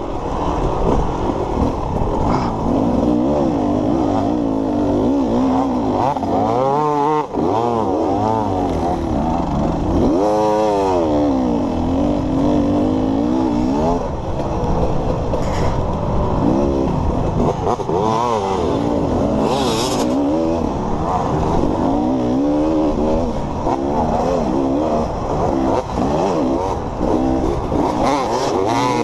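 Dirt bike engine recorded on board while riding, its pitch rising and falling again and again with throttle and gear changes. A short rush of hiss cuts in about twenty seconds in.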